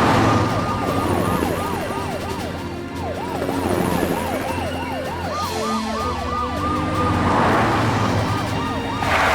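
Cartoon rescue-vehicle sirens wailing in rapid up-and-down sweeps, about three or four a second, over a steadier high siren tone. A rushing whoosh swells about seven seconds in and again near the end.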